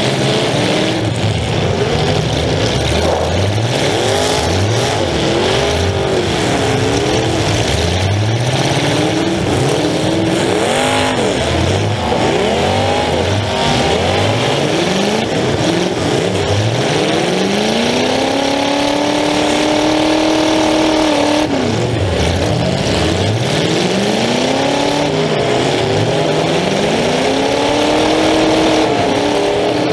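Demolition derby car's engine running through open exhaust stacks that stick up through the hood, revving up and dropping back over and over as the car drives. It climbs to a long high-revving stretch about two-thirds of the way through.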